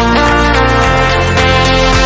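Background music with held synth notes and a steady beat.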